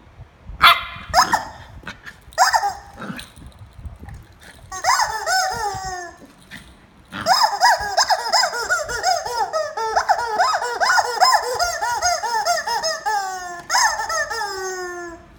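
Welsh corgi puppy barking and yapping in quick, falling high-pitched calls while biting a rubber squeaky chicken toy, which squawks as it is squeezed. A few separate calls come first, then an almost unbroken string of them from about halfway through until shortly before the end.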